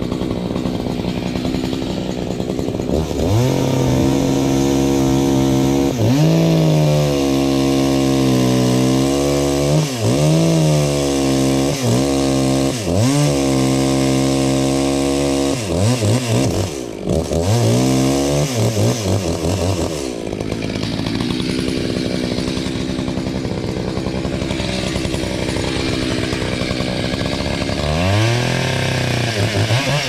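Chainsaw cutting into the base of a silver birch trunk, the engine revving high with its pitch dipping and recovering again and again as the chain bites. About two-thirds of the way through it settles to a lower, steadier run, then revs up again near the end.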